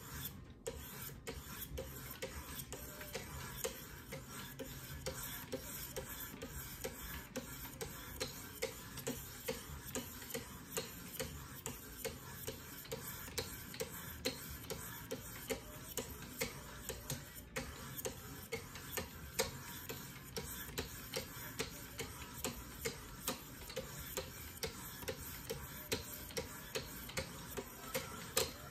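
Hand-held sharpening paddles on a Wicked Edge guided sharpener drawn along a clamped knife blade in alternating strokes, an even scraping rhythm of about two strokes a second.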